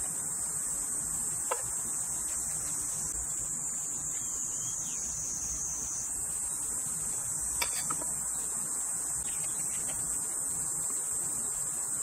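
A steady high-pitched insect chorus that eases briefly in the middle, with a few soft clicks from a knife cutting into a pineapple, once early and twice in quick succession just past the middle.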